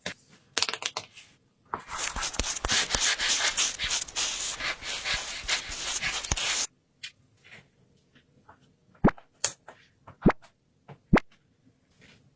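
Paper crinkling and rustling for about five seconds as a paper blind bag is handled and opened, then a few separate light taps and clicks as small paper pieces are set down.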